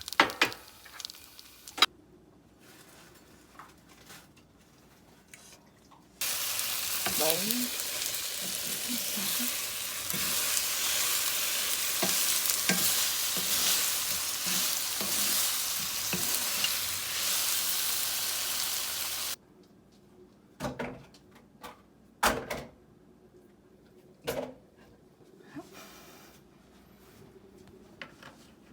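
Cheese rice cakes frying in oil in a pan: a steady sizzle lasting about thirteen seconds that cuts off suddenly. Before and after it, quieter stretches with a few scattered clicks and knocks.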